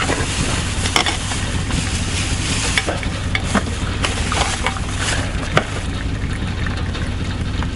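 Metal spoons clicking and scraping against food containers, with plastic bags rustling, as a group eats. Underneath runs a steady low hum and hiss.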